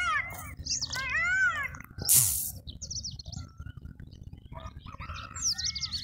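Birds calling: a run of quick arching calls at the start, then scattered high thin chirps near the end. A short loud burst of noise comes about two seconds in, over a low rumble throughout.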